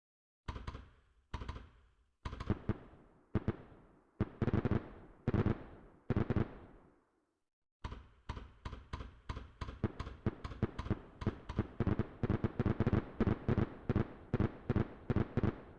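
Fireworks bursting: sharp bangs each trailing off, a few spaced about a second apart, then from about halfway a rapid barrage of many bangs in quick succession, like a finale.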